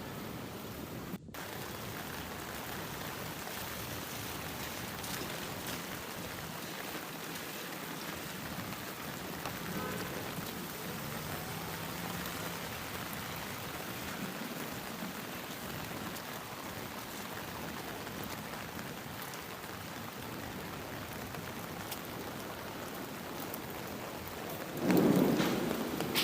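Steady rain falling, with a brief cut-out about a second in and a short, loud low rumble near the end.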